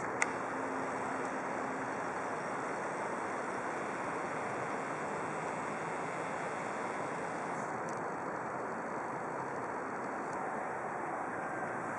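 Steady, even outdoor background noise, a continuous rush with no distinct events, with a single sharp click just after the start.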